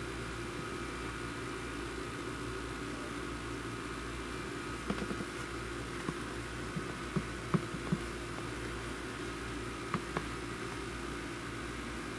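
Steady mechanical hum carrying several constant tones. From about five seconds in, a cluster of short soft taps and then two more about ten seconds in, as block-heeled patent leather boots shift on carpet.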